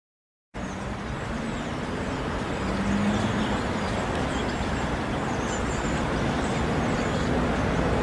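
Distant road traffic: a steady rumble and hiss that starts abruptly about half a second in, with a few faint high chirps over it.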